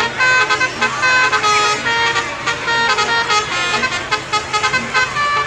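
Telolet horn, a set of multi-tone air horns, sounding a tune of short notes at changing pitches, one after another without a break.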